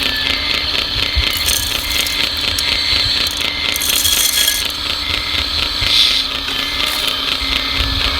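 Radio-controlled model construction machinery running: small motors and gearing with a fast, even ticking rhythm over a steady hum.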